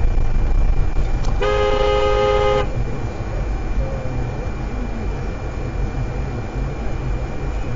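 A car horn blares once, held for about a second, its two close notes sounding together. Under it, the steady low rumble of road and engine noise inside a moving car.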